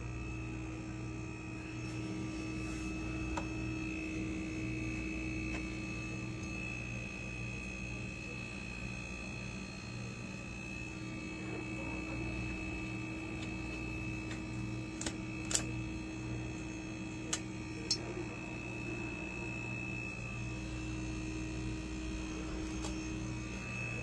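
Refrigerator running in its compressor compartment: a steady hum with a faint high whine. A few small clicks come about two-thirds of the way through.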